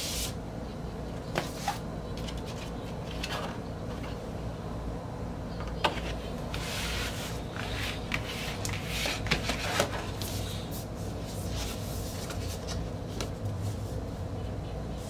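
Paper and card rustling and sliding as an LP's printed inner sleeve and insert are drawn out of the record jacket and set down on a desk, with scattered light taps and knocks. A low steady hum sits underneath.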